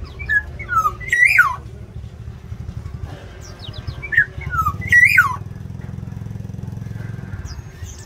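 Black-naped oriole calling twice, about three seconds apart: each call is a quick run of whistled notes falling in pitch, mixed with sharp rasping sweeps. A low engine rumble runs underneath, heavier in the second half.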